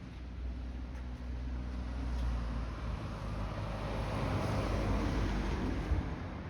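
A motor vehicle passing: a low engine and road rumble that swells to a peak partway through, then begins to fade.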